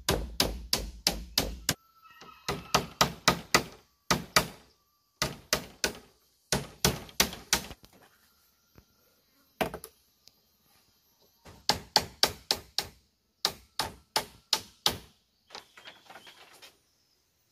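Hand tool striking bamboo in quick runs of hard blows, about four a second, with short pauses between the runs. Lighter, fainter clattering near the end.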